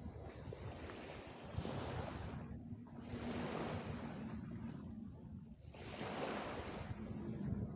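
Small waves breaking and washing up a sandy beach, swelling and falling back every two to three seconds, with wind buffeting the microphone.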